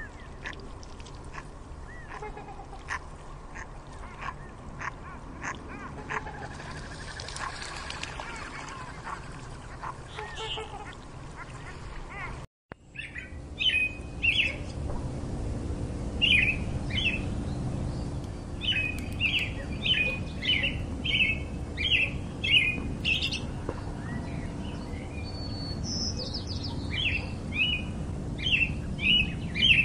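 Mallard ducks on the water, with faint calls and clicking sounds. After a brief break, a bird gives a short, sharp chirp over and over, about once or twice a second, over a steady low rumble.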